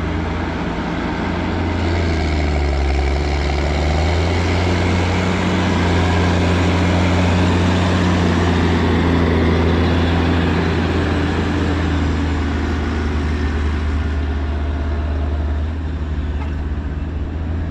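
A heavy farm vehicle's engine running steadily and close. Its pitch drops for a couple of seconds early on, as if under load, then rises again.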